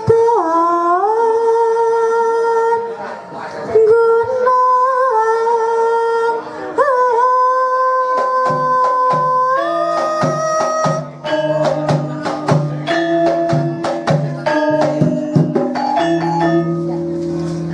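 Javanese gamelan with a female singer: long, sliding sung notes over sparse accompaniment, then about halfway through the kendang drums and struck metallophones and gongs come in with a dense, quick beat under the voice.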